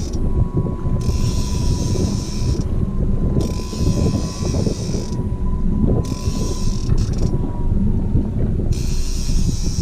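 Fishing reel working in repeated spells of one to two seconds, a hissing whir with short gaps between, while a hooked fish is played. A heavy low rumble of wind on the microphone runs underneath.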